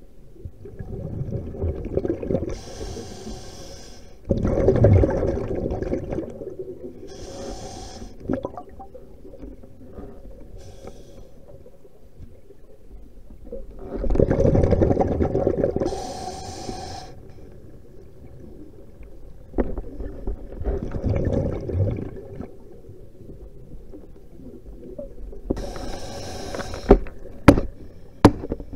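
Scuba diver breathing on a regulator, heard underwater: about six slow breaths a few seconds apart, each a hiss and a rumbling, gurgling rush of exhaled bubbles. A few sharp clicks near the end.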